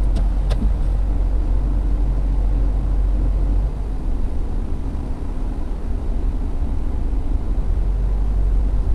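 Car driving, heard from inside the cabin: a steady low rumble of engine and road noise that eases slightly about four seconds in.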